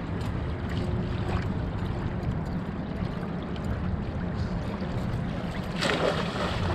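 A stringer of trout thrown back into shallow lake water, landing with a splash near the end, over a steady low background rumble.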